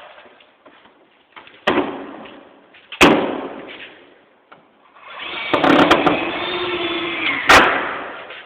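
Loud bangs and knocks of building work, one a little under two seconds in, another about three seconds in, and the loudest near the end. Before the last bang a steady whirring sound runs for about two and a half seconds.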